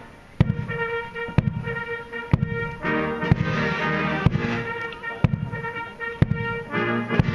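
Military band playing a march: brass over a bass drum striking about once a second, the music picking up again after a short pause at the start.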